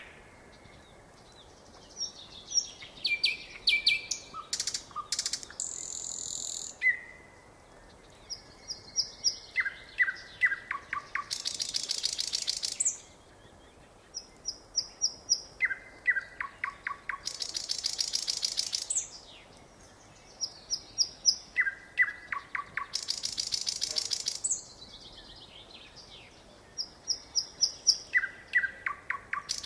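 Nightingale singing: phrases repeated about every six seconds, each a run of quick clear notes stepping down in pitch, followed by a rapid dry rattling trill, with short pauses between phrases.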